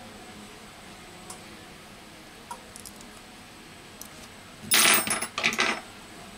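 Metal tweezers clicking faintly against a phone's metal frame and small parts, then a loud clattering rattle in two short bursts near the end as the metal frame and tools are handled on the repair mat.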